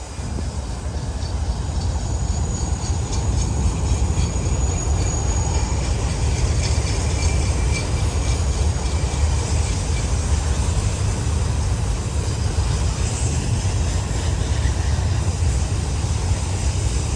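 Loaded auto-rack freight cars rolling past close by: a steady rumble of wheels on rail that swells in over the first couple of seconds, with a thin high wheel squeal through the middle.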